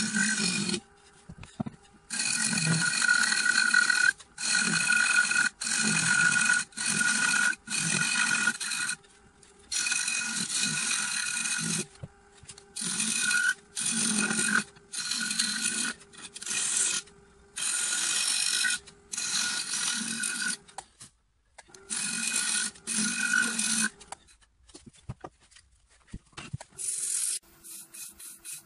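Wood lathe spinning a wooden bowl while a turning tool cuts the inside: a series of scraping cuts, each half a second to two seconds long with a steady ringing tone through it, the lathe humming faintly between cuts. The cutting stops about 24 seconds in, leaving fainter scattered sounds.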